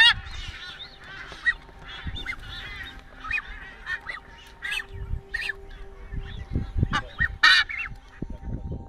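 Several Nazca boobies calling: repeated short honking calls, the loudest at the start and again about seven and a half seconds in.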